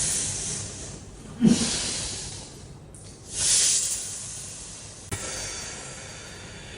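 Heavy breathing and hissing exhalations from a patient during a chiropractic adjustment. A short sharp onset with a brief falling tone comes about a second and a half in, the loudest exhale about three and a half seconds in, and a sharp click about five seconds in.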